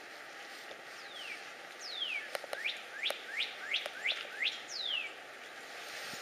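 A songbird singing a whistled phrase: two falling notes, then a quick run of about six rising notes, then one more falling note, over a steady hiss.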